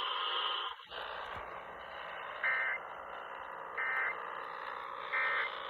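Three short Emergency Alert System end-of-message data bursts, buzzy digital tones a little over a second apart, over a steady hiss of AM radio reception.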